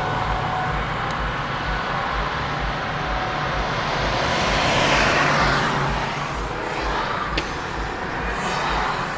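Road and tyre noise of a car driving on a highway, with another vehicle rushing past about halfway through and again near the end. A regular low pulsing runs underneath.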